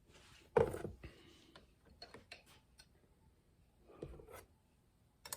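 Light metal clicks and knocks of transmission clutch plates being handled and set into the 3-4 clutch pack of a 700R4 automatic transmission, with a louder knock about half a second in, a run of small ticks after two seconds and a sharp click near the end.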